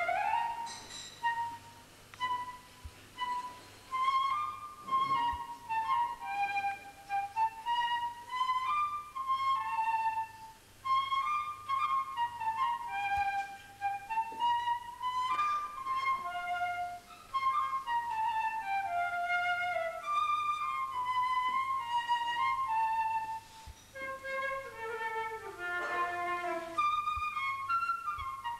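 Concert flute playing a melody of short notes that move up and down in quick runs.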